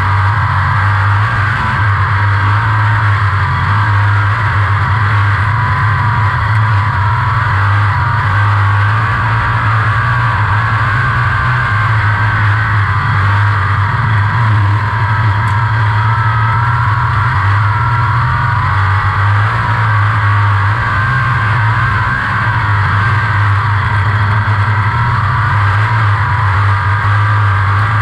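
A 360 sprint car's V8 engine running hard at racing speed, heard from the cockpit as a loud, steady drone that barely rises or falls from lap to lap.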